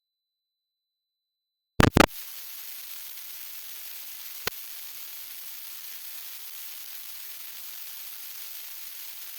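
Several loud sharp clicks about two seconds in, then a steady hiss with one more sharp click partway through.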